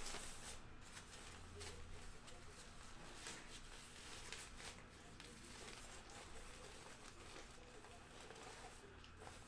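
Faint rustling and handling noise from a black cloth drawstring bag being opened and rummaged through, over a low steady hum.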